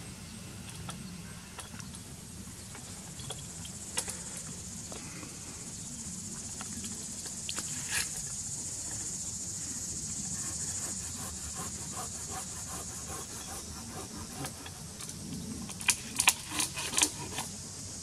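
A steady, high-pitched drone of insects. A few sharp clicks come about four and eight seconds in, and a quick run of louder clicks comes near the end.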